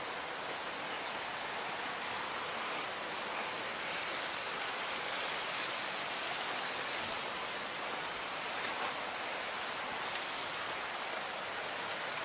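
Steady, even rush of flowing water from a forest stream, with faint rustling of footsteps through undergrowth.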